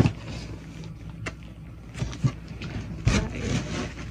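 Cardboard box flaps being pulled open and handled, a scraping and rustling noise with a sharp click about a second in and a louder rustle near the end.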